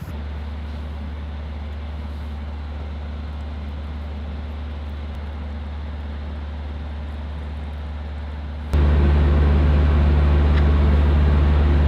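Narrowboat engine running with a steady low drone. About nine seconds in, the drone abruptly becomes much louder.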